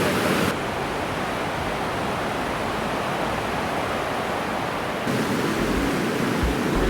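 Waterfall water rushing as a steady, even noise. It turns duller about half a second in and brighter again about five seconds in.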